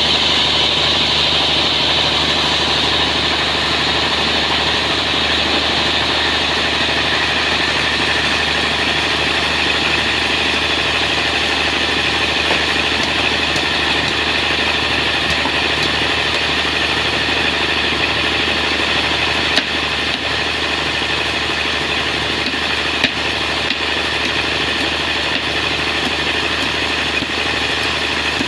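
Sawmill running steadily as it saws a large trembesi (rain tree) log: a continuous engine-driven machine sound with a strong high whine from the saw, and a few small knocks in the last third.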